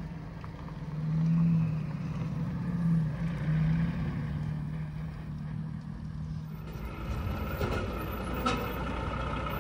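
Lotus Exige's supercharged V6 pulling away, swelling in three short bursts of throttle. The sound then switches to a heavy lorry's diesel engine running steadily.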